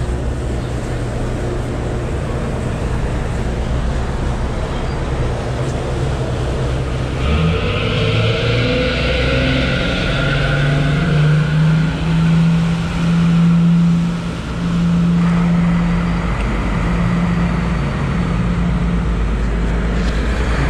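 A pilot boat's twin V12 Cummins diesels running under way at speed, with rushing wake water. About seven seconds in the engines rev up, their pitch climbing and then holding a strong, steady note.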